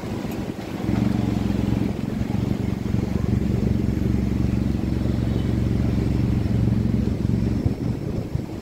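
A motor vehicle's engine running steadily close by, a low even drone that comes in about a second in and fades out near the end.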